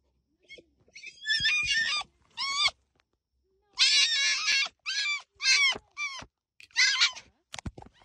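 Pet arctic fox calling in a rapid run of short, high-pitched, wavering yelps and whines, in about six bouts with short pauses between them.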